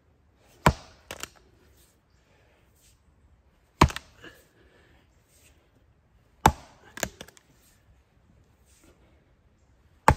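Fiskars 6 lb splitting maul chopping into a log round: three heavy strikes about three seconds apart, each followed by a lighter knock, with a fourth strike at the very end.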